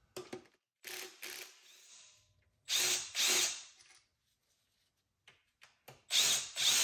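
Hand ratchet wrench clicking in short runs, mostly in pairs of strokes, with a pause of a couple of seconds before the last pair.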